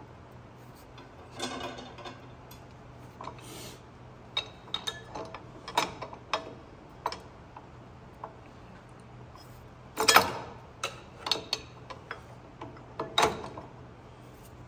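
Hand tools drawing a crankshaft pulley onto the crankshaft of a Dodge Power Wagon engine: scattered metallic clicks and knocks, the loudest about ten seconds in and again near thirteen.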